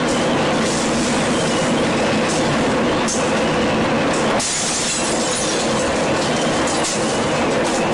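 Steady, loud rushing noise of tornado-force wind, with the continuous freight-train-like rumble typical of a tornado passing close by.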